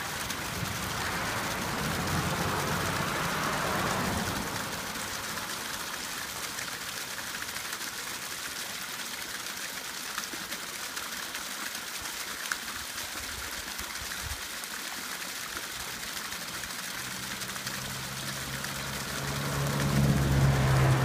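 Spring water pouring from a pipe into a 5-gallon plastic jug, a steady splashing trickle, with a small stream running beneath. Near the end a motor vehicle's engine builds up and becomes the loudest sound.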